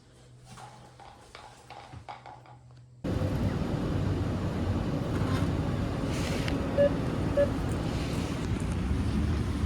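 A few faint clicks and light knocks, then a sudden cut about three seconds in to steady low rumbling road noise inside a moving car, with two short beeps near the middle.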